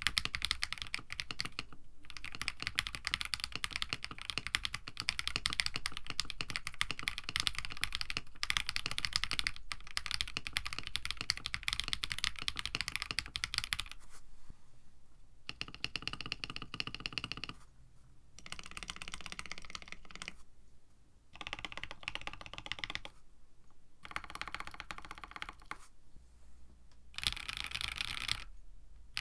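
Mechanical keyboard with KTT Strawberry long-pole linear switches, top housings lubed with 3203, in a KBD67 Lite with an FR4 plate. It is typed on steadily for about 14 seconds with a fast clacking. Then the larger stabilized keys are pressed in separate runs with short pauses between them.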